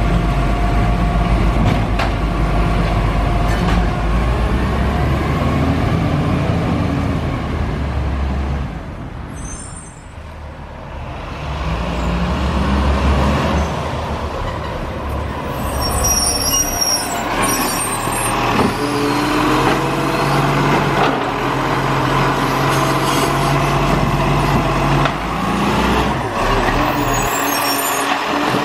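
Diesel garbage truck running, its engine note shifting up and down and briefly dropping quieter about a third of the way in. A few short high hisses break in over it.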